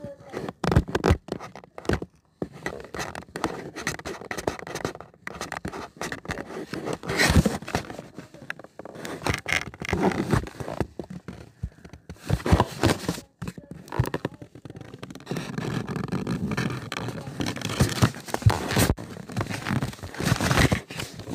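Irregular scraping, rubbing and scratching handling noises, broken by many sharp clicks and knocks at uneven intervals.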